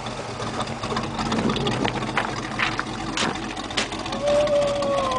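GMC pickup's engine running at low crawling revs while its tyres grind over loose rock, with scattered crunches and knocks of stone under the wheels. Near the end a drawn-out squeal that dips in pitch as it fades.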